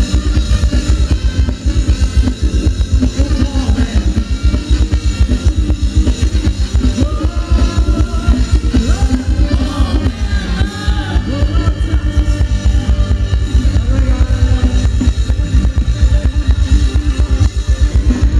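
Live band playing Thai ramwong dance music, loud, with a fast, steady drum beat under amplified instruments and singing partway through.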